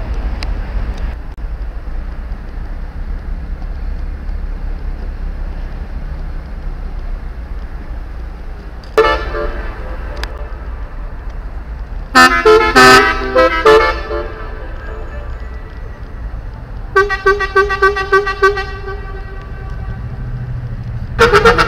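Ship horns sounding in chords of several notes over a steady low rumble. A single blast comes first, then a loud cluster of overlapping horn notes and a run of about six quick toots, and a loud horn chord starts near the end.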